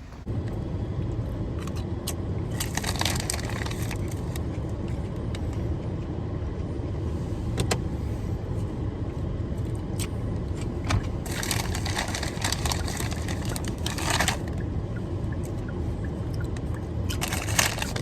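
Steady road and engine noise heard inside a moving car, with a few stretches of higher rattling hiss.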